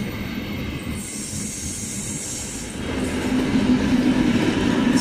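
Passenger coaches rolling past on jointed track, then about three seconds in the ČKD class 749 diesel locomotive pushing at the rear of the train passes, its engine's low drone rising in loudness.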